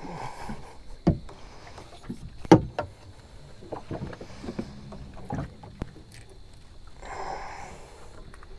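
Irregular knocks and bumps on a small boat's hull and deck while a freshly caught threadfin salmon is handled on a measuring mat. The loudest thump comes about two and a half seconds in, and soft rustles come near the start and again about seven seconds in.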